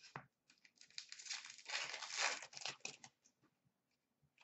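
A hockey card pack's wrapper being torn open and crinkled: a rustling, tearing noise lasting about two seconds, starting about a second in, with a few small handling clicks around it.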